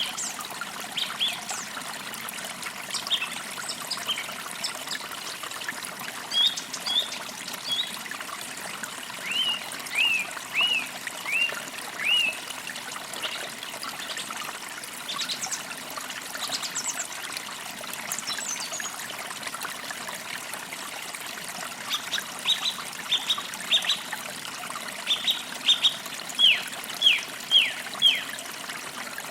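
Forest creek trickling steadily, with songbirds chirping over it in runs of short, quick notes. One string of falling chirps comes about ten seconds in, and another near the end.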